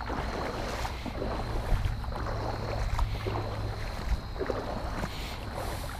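Creek water splashing and swishing around waders as someone wades through a shallow creek, in uneven pulses, over a steady low rumble.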